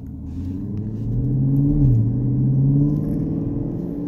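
A 2016 Chevrolet Camaro SS's 6.2-litre V8 accelerating, heard from inside the cabin. The engine note rises, drops at an upshift of the 8-speed automatic a bit under two seconds in, then climbs again and evens out.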